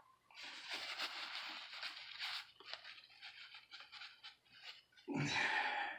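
Crinkling and rustling of a bandage wrapper being opened and handled, with scattered small crackles and clicks, then a short louder burst of noise near the end.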